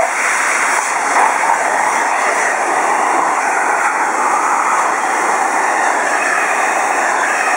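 Hair dryer running with a steady, even rush of air, drying a dog after its shampoo.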